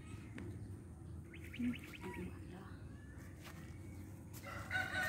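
Domestic chickens calling: a short call about a second and a half in, then a louder, longer call near the end.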